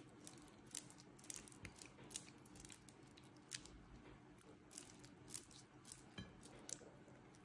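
Faint, irregular soft clicks and squishes of a silicone spatula spreading mayonnaise over raw chicken breasts and touching the glass baking dish, several a second.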